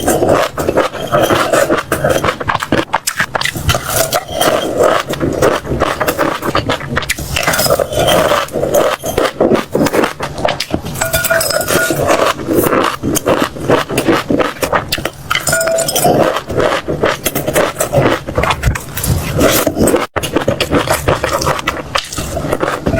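Close-miked crunchy crackling and scraping, a dense unbroken stream of small clicks with the odd clink.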